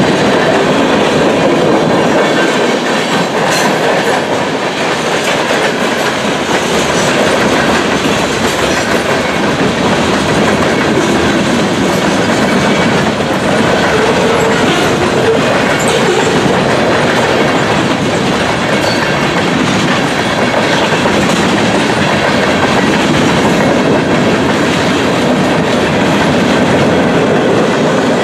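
Freight train cars rolling steadily past at close range: steel wheels clattering over the rail joints under a loud, even rumble.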